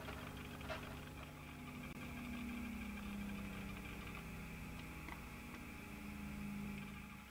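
A steady low mechanical hum with a slowly wavering tone in it, and a few faint clicks.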